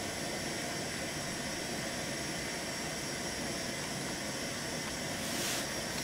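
Steady hiss and hum of background noise with no clear rhythm, and a brief rustle of paper about five and a half seconds in.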